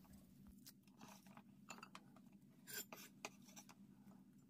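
Near silence with faint scratches and light clicks: cut onion wedges being pulled apart into layers by hand and pushed off a wooden cutting board with a knife.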